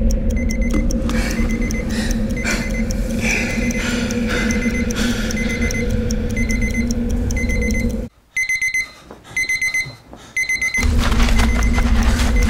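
Digital alarm clock beeping in short repeated bursts over a low steady drone. About eight seconds in the drone drops out, leaving the beeps alone in quick clusters, and it comes back near the end.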